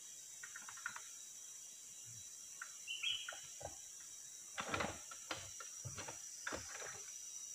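Steady high-pitched drone of forest insects, with one short bird chirp about three seconds in. Several short knocks in the second half are the loudest sounds.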